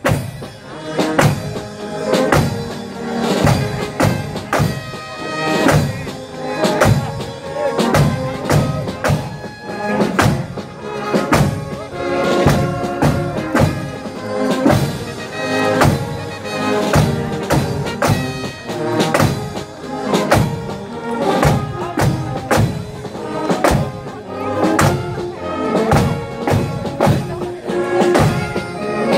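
Marching band playing a march: a melody over a steady drum beat.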